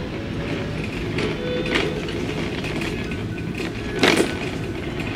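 Shopping cart rolling along a store floor, its wheels rattling steadily, with a short knock about four seconds in.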